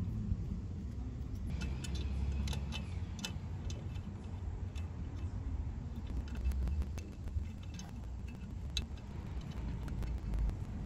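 Light metallic clicks and taps as a chrome air cleaner backing plate is offered up to a motorcycle engine and its bolts are threaded in by hand, over a low background rumble.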